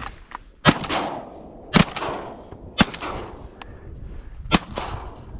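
Shotguns fired by two duck hunters at incoming ducks: four loud shots, the first three about a second apart and the last about two seconds later.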